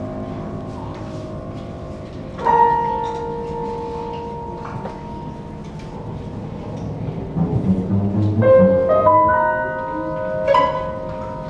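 Live contemporary chamber music for violin, cello, clarinet and piano: sparse held, ringing notes, with a sharp struck note about two seconds in and a denser cluster of overlapping notes building near the end.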